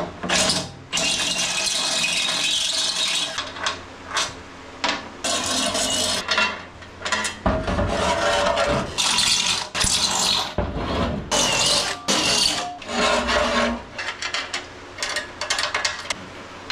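Cordless drill running in several bursts of one to three seconds, with metal clatter between them, as bolts are driven to fasten an air tank's mounting bracket into a car's trunk.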